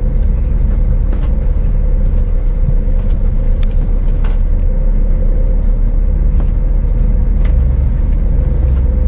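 Scania S500 truck's engine running as it drives over a rough dirt lot: a steady low rumble with scattered knocks and rattles, the engine growing louder near the end.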